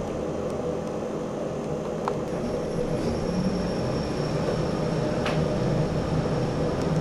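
Kone traction lift running, heard from inside the glass car as a steady mechanical hum. A faint high whine joins about three seconds in, with a few faint ticks.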